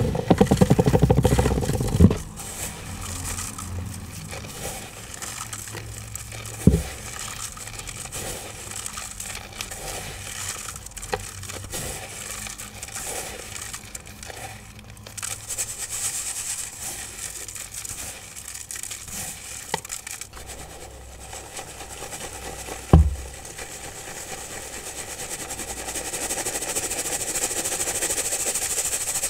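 Dry iron oxide pigment and chalk pebbles being crushed and sifted into powder: crackling, crumbling and scraping, with three sharp knocks, and a steadier powdery hiss building near the end.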